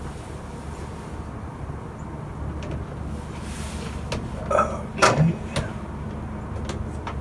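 Window screen frame being handled and pushed into the window frame, with a handful of sharp knocks and clicks in the second half, over a low steady hum.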